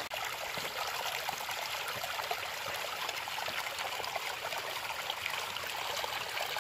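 Small, clear woodland brook trickling over stones: a steady run of tiny splashes.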